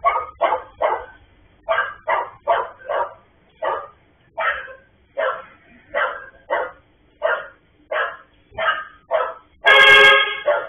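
A dog barking over and over, about two barks a second, heard through a security camera's microphone. Near the end a single loud steady tone, under a second long, sounds over the barking.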